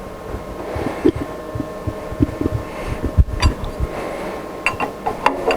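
Handling noises as a tapered ball-nose cutter is fitted into a router spindle's collet chuck and the collet nut is snugged up: irregular soft low knocks, with a few sharp metallic clicks near the end.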